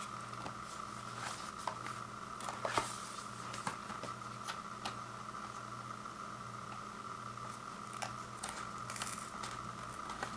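Scattered light clicks and rustles of a frozen pizza's cardboard box and plastic wrap being handled, over a steady electrical hum.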